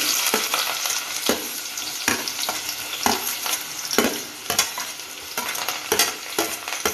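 Chopped onions sizzling in hot oil in a steel pot, with a metal spoon scraping and clinking against a steel plate and the pot as they are tipped in and stirred. The sizzle is loudest as the onions go in and eases off.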